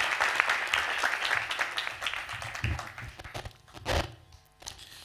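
Audience applauding, the clapping fading out about three seconds in. A few dull thumps follow, one loud one near the end.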